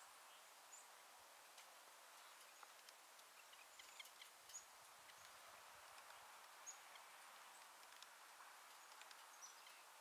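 Near silence: faint, brief high-pitched chirps of small birds now and then, with a few soft ticks.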